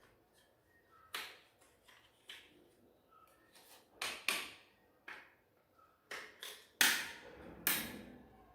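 Parts of a 12A laser toner cartridge being handled during repair: a string of short scrapes and knocks at irregular intervals, the loudest a few seconds from the end.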